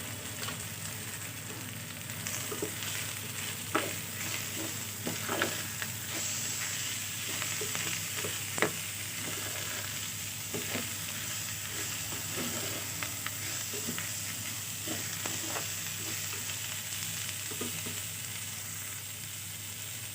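Rice and dal frying in oil in a pan, sizzling steadily, while a spatula stirs them, knocking and scraping against the pan now and then.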